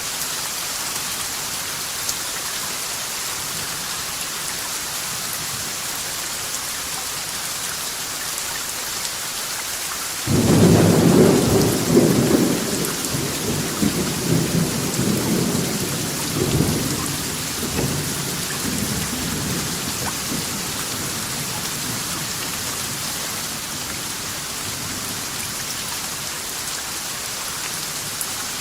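Steady rain falling, with a thunderclap about a third of the way in whose deep rumble rolls on in several surges for around ten seconds before fading back into the rain.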